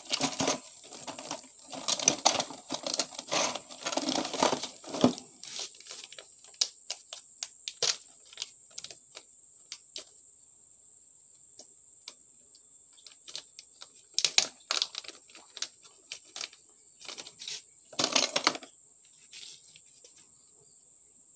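Steady high-pitched insect trill, typical of crickets, with scattered light clicks and rustles on top, dense in the first five seconds and again in a short burst near the end.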